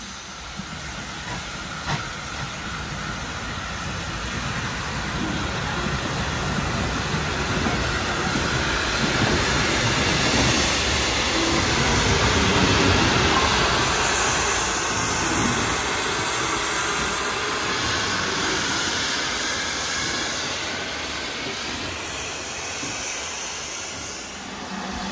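Steam locomotives hissing steam while a steam train runs past on the rails. The noise swells to its loudest about halfway through and then eases off.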